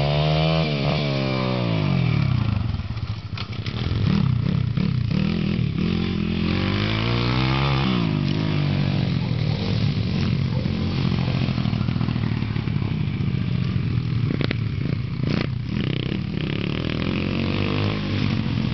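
Pit bike engine revving up and easing off as it is ridden, its pitch rising and falling several times, with a brief drop in level about three seconds in.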